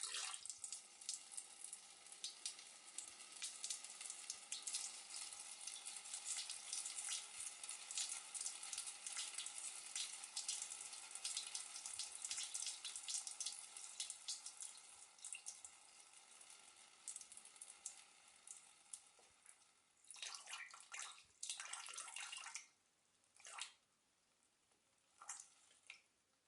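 A person urinating: a steady splashing stream that slowly weakens, then a few short final spurts near the end.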